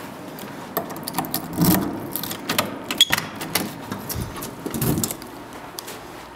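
A run of irregular clicks and rattles with some rustling, over about four and a half seconds, then it quiets down.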